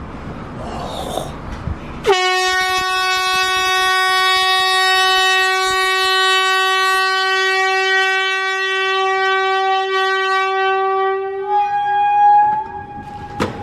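Air horn blasting one long, loud, steady note for about nine seconds, starting suddenly about two seconds in. Near the end the note jumps higher and wavers before it cuts out.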